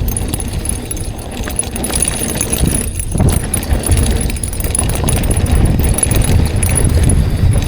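Mountain bike riding over a rough dirt trail, with wind buffeting the microphone and a steady clatter and rattle from the bike's chain and frame over the bumps.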